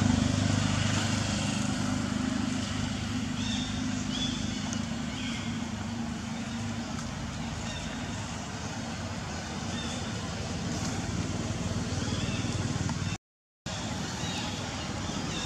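Outdoor background noise with a steady low engine hum, like a motor vehicle running, that fades away during the first few seconds. A few short high chirps follow, and near the end the sound cuts out completely for about half a second.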